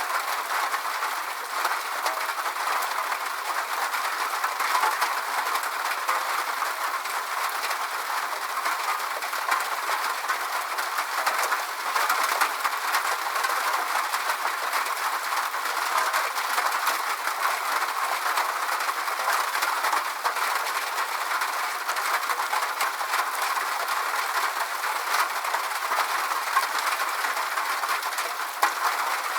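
Steady rain falling, an even hiss of many small drops that holds without pause.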